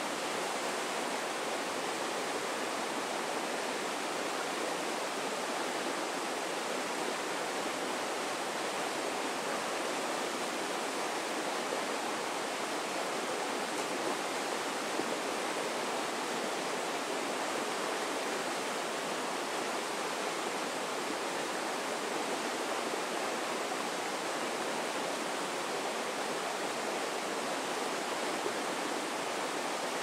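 Swift river rapids rushing steadily over rocks, a constant even roar of whitewater.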